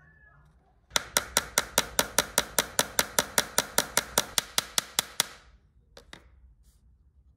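Small hammer tapping quickly and evenly, about five light blows a second for some four seconds, each blow ringing briefly. Two light clicks follow near the end.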